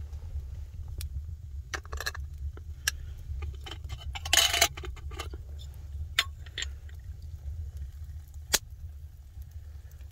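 Clinks and knocks of a small glass jar with a metal lid being handled, with the sharp pops of a wood fire, a brief rush of noise about four seconds in, and a steady low rumble underneath.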